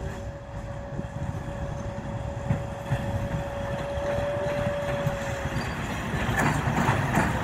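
2TE116 two-section diesel locomotive approaching, its diesel engines rumbling louder as it nears. A steady whistling tone, typical of this class's turbochargers, fades out about five seconds in. Wheel clatter over the rails builds near the end.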